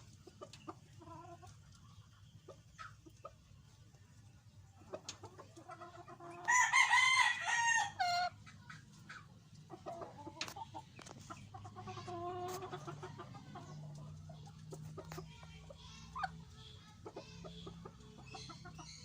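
Gamefowl rooster crowing once, about six and a half seconds in, for nearly two seconds, with fainter chicken clucks and calls around it.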